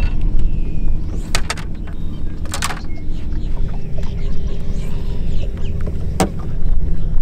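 Boat motor running steadily, with a few brief knocks and a short rattle against the hull or deck.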